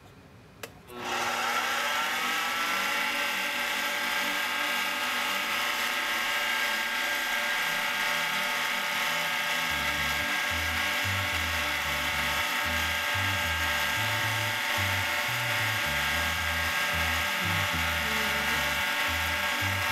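Mini lathe starting up about a second in, its motor and gears whining up to speed, then running steadily while a wooden dowel with polishing compound is pressed against the spinning aluminium bar. A low, uneven rumble joins about halfway through.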